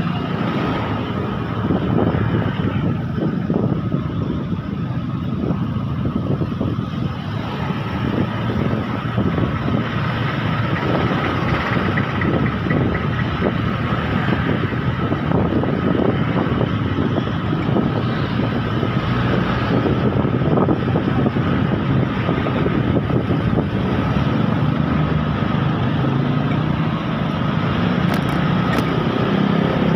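Motor scooter riding slowly through city traffic: its engine and road noise run steadily, mixed with the sound of the surrounding traffic.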